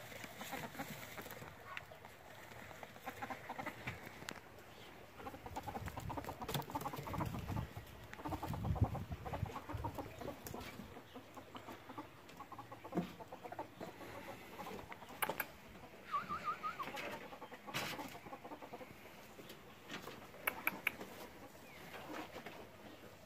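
A ferret dooking: soft, rapid clucking chuckles, thickest about eight to ten seconds in, with scattered sharp knocks later on.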